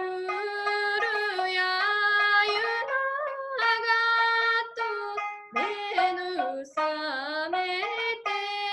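Woman singing in long held notes that slide between pitches, with a few short breaks, accompanying herself on the sanshin, the Okinawan three-stringed lute.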